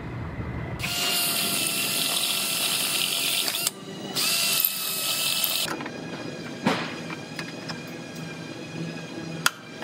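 Cordless drill-driver running in two runs, about three seconds and then about one and a half, spinning a bolt into a small steel bracket. After it stops, a few light clicks of the metal bracket being handled, with one sharp click near the end.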